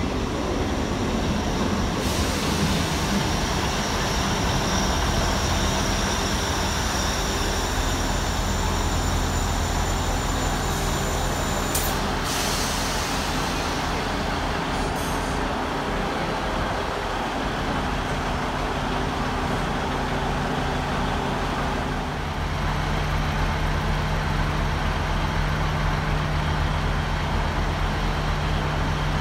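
Train at a station with a steady low mechanical hum. There is a brief sharp sound about twelve seconds in, and about twenty-two seconds in the hum grows stronger and slightly louder.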